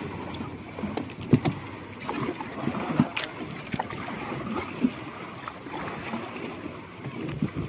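Water sloshing and lapping at a boat, with wind on the microphone and a few sharp knocks scattered through.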